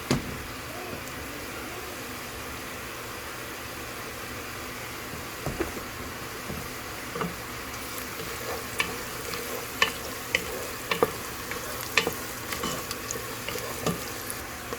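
Onions, celery, carrots and tomato paste sizzling in oil in a pot, a steady hiss. A knock at the start, and from about five seconds in a spoon stirring and clicking against the pot many times.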